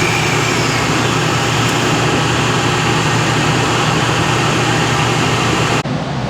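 Metal lathe running while a parting tool cuts a small 303 stainless spacer off bar stock, a steady loud cutting noise that stops abruptly near the end.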